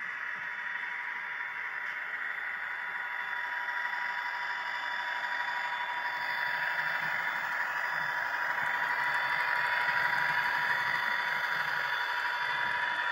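Model train running along the layout track: a steady whirring hiss from the locomotive and the wheels of the Schnabel car and its train, with a thin constant whine, growing louder as the train comes closer.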